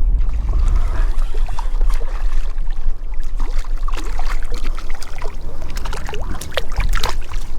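Shallow water sloshing and splashing around a wade fisherman, with small drips and plops from about three seconds in, over a steady low rumble.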